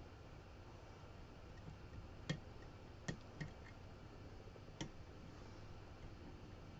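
Lock picking on a CX5 lock cylinder with a short hook: a handful of faint, sharp clicks as the pick works the pins, the loudest about two seconds in.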